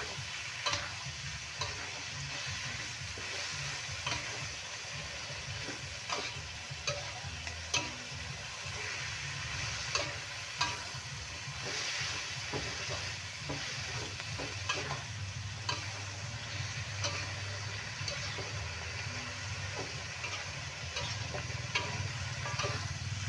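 Shrimp, carrots and green beans sizzling in a hot wok while a metal spatula stir-fries them, its strokes scraping and clicking against the pan at irregular intervals.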